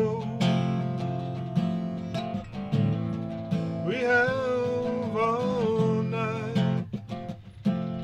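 Steel-string acoustic guitar strummed through a two-chord A minor–F major vamp, with a man singing a drawn-out line about four seconds in. The strumming thins out briefly near the end.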